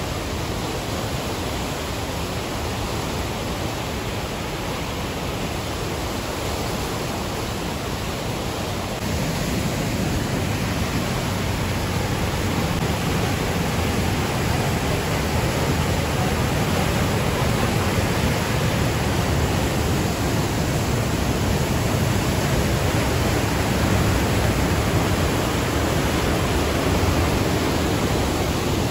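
Johnston Creek's white water rushing through the canyon's rapids and a small cascade as a steady rush of noise. It grows louder and deeper about nine seconds in, when the cascade is heard close up.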